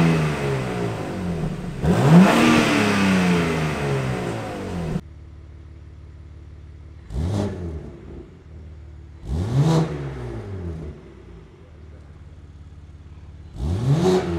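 BMW G80 M3 Competition's twin-turbo inline-six revved while standing. The first five seconds are through the stock exhaust with valves open: one rev falling back at the start and another about two seconds in, held briefly. After a sudden cut, it idles through a Valvetronic Designs titanium exhaust with sport cats, valves closed, and is blipped three times, each rev rising quickly and falling straight back to idle.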